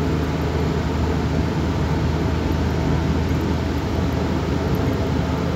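Steady wind-like air noise heard inside a moving car's cabin, over the engine's low hum. The driver suspects foam sponges by the radiator were blown off when the engine was pressure-washed.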